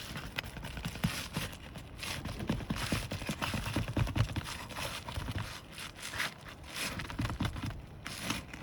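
Roof shingles being pried and lifted up, with an irregular run of scrapes and crackles as they come loose from the sealant and the roof.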